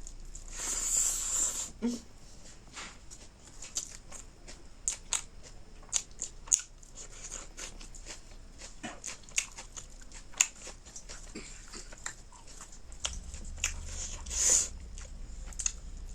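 Close-miked eating: chewing and crunching with many sharp mouth clicks and smacks, and two longer noisy sounds, one about a second in and one near the end.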